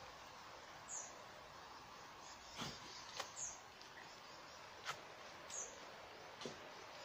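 A small bird repeats a short, high, falling call about every two and a half seconds over a faint steady background hiss, with a few soft clicks and knocks in between.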